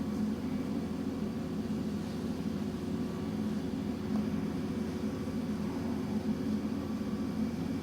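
A steady low mechanical hum, like an engine running, with a few faint steady tones above it.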